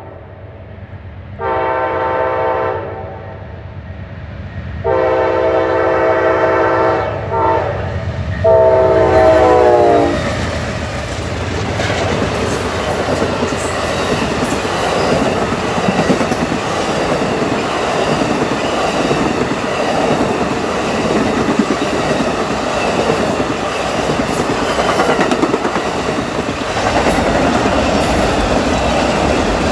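Amtrak Auto Train passing at speed. The locomotive's horn sounds several tones together in four blasts, long, long, short, long, the standard grade-crossing signal, and the last blast drops in pitch as the locomotive goes by. After that, the continuous rumble and clickety-clack of the Superliner passenger cars and autorack car carriers rolling past.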